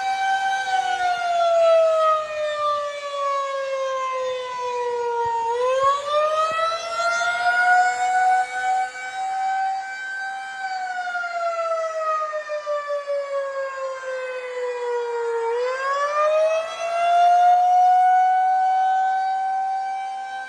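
Federal Signal 2001-SRNB rotating electromechanical warning siren sounding the attack signal: a loud wail that slowly falls in pitch over about five seconds, climbs back up over about three, holds, then falls and rises again, twice in all.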